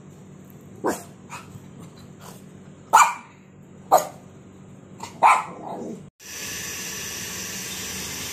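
Dogs playing rough, with four sharp barks and a few smaller yips over about five seconds. About six seconds in, the sound cuts off and a steady hiss takes over.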